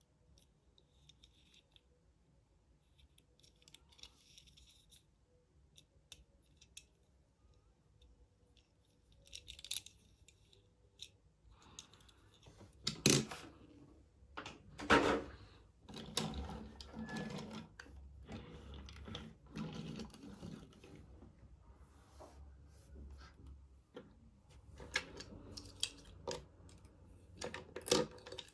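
Hands handling and opening toy car packaging: scattered clicks and rustling of plastic and cardboard, with two louder knocks a couple of seconds apart about halfway through.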